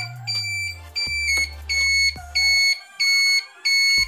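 Motorcycle turn-signal beeper sounding in time with the flasher, a high electronic beep about twice a second while the right signal is switched on.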